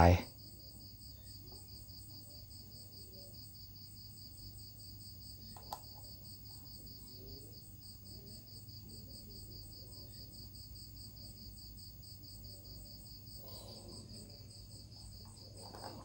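Steady, high-pitched pulsing trill of insects, over a low hum, with one faint click about six seconds in.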